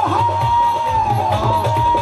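Punjabi devotional song performed live: one long held melodic note that dips slightly partway through, over a steady drum beat.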